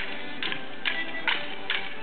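Morris dancers' wooden sticks clashing together in time, about two sharp knocks a second, five in all, over a folk band's squeezebox tune.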